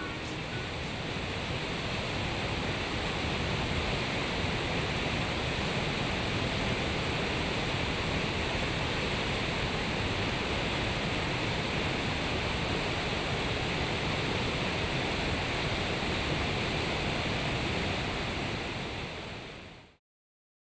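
Whitewater rapids of a mountain river rushing over boulders, a steady, even noise that fades out near the end.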